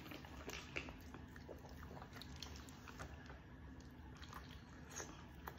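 Faint sipping and swallowing from aluminium soda cans, with scattered small clicks over a low steady room hum.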